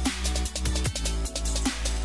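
Electronic background music with a heavy bass and a steady drum beat.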